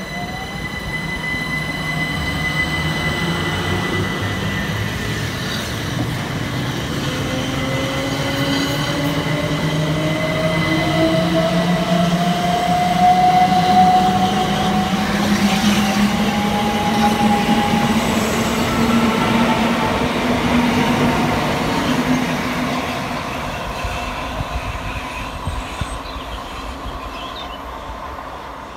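Southern Class 377 Electrostar electric multiple unit pulling away past the platform, its traction motors whining steadily up in pitch as it gathers speed, over wheel and rail noise. The sound is loudest about halfway through and fades toward the end as the train draws away.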